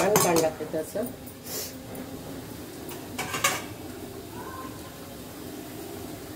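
A few short clinks of steel kitchen utensils being handled, about one and a half and three and a half seconds in, over a steady low background noise; a voice briefly at the very start.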